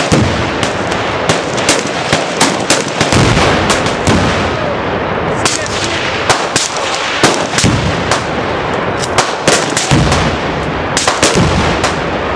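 Rapid, overlapping rifle fire from many shooters, shots cracking several times a second. It is broken by about five deep booms of Tannerite targets detonating downrange, each followed by a rumble.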